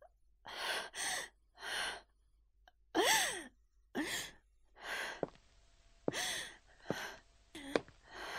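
A person's shaky, gasping breaths and sighs, about a dozen in a row, some carrying a short voiced whimper that rises and falls in pitch: tense, near-sobbing breathing in a dramatic pause.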